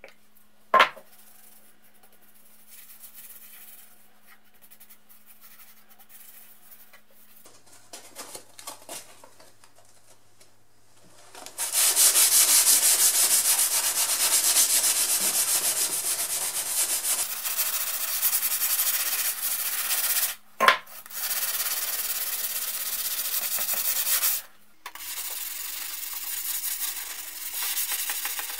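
220-grit sandpaper on a sanding block rubbed back and forth over the steel blade of an 1880s Richardson Bros. rip saw, scouring off loose surface rust. The sanding starts about twelve seconds in, after a quiet stretch with a sharp click near the start, and runs on with a short break and another click partway through.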